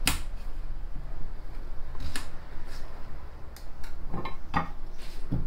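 A sharp click at the start, then a few scattered light clicks and knocks from handling on a kitchen counter, over a low steady hum.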